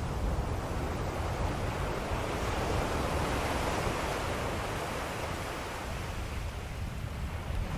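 Ocean waves breaking and washing on a shore, a steady surf noise that swells to a peak about midway and then eases off.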